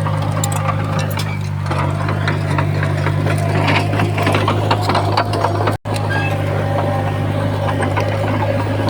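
Komatsu D31P bulldozer's diesel engine running steadily under load, a constant low hum with frequent clanking and rattling from the machine. The sound drops out for an instant just before six seconds in.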